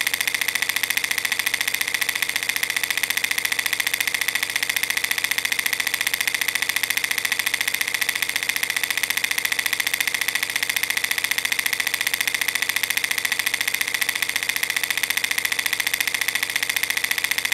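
Film projector running: a steady, rapid, even mechanical clatter of film being pulled through the gate, unchanging throughout.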